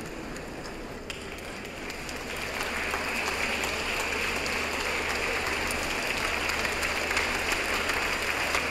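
Large concert-hall audience applauding, the clapping swelling about two seconds in and growing steadily louder.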